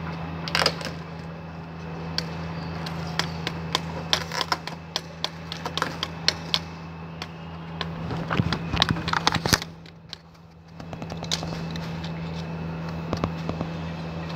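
A blade cutting and scraping the outer sheath of a thick armoured power cable, with irregular clicks and scrapes of hand tools against the cable, over a steady low hum.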